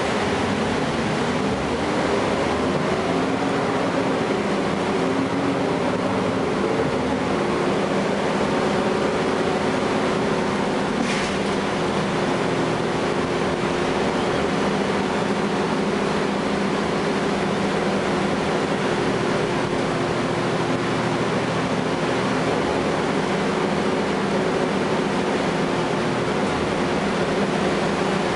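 The Cummins ISL9 inline-six diesel of a 2012 Gillig Low Floor bus, heard from inside the cabin as it pulls the bus along. Its pitch rises over the first several seconds as the bus accelerates, then it runs steadily at a constant speed.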